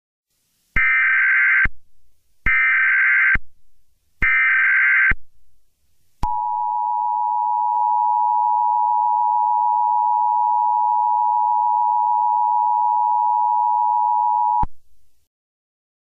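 Emergency Alert System broadcast tones. First come three short bursts of the SAME data header, a harsh digital screech each just under a second long, about 1.7 s apart. Then the two-tone EAS attention signal holds as a steady dual tone for about eight seconds and cuts off abruptly.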